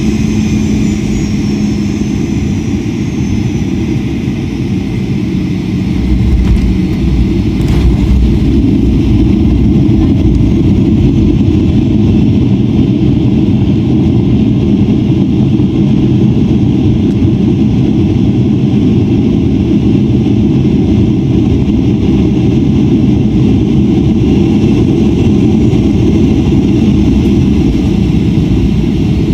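Boeing 737-800's CFM56-7B jet engines and landing roll heard from the cabin over the wing. A falling engine whine fades over the first few seconds, then about six seconds in a louder low rumble sets in, with a single clunk soon after, and the rumble runs on steadily as the airliner rolls out on the runway.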